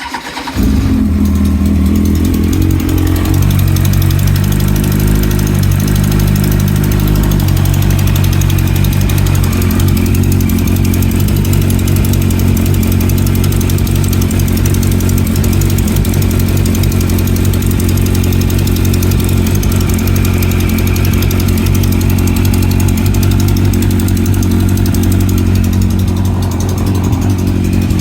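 A 2009 Kawasaki ZX-10R's inline-four engine is started, catches within about half a second and settles into a steady idle, its note stepping down slightly about seven seconds in. The idle carries the ticking/clicking noise that the owner is asking about.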